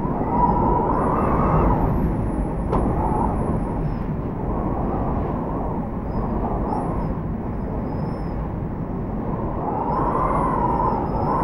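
Typhoon wind howling in gusts with wind-driven rain, heard through a window. A whistling, wavering howl swells near the start, eases, and rises again about ten seconds in over a steady rush of wind and rain.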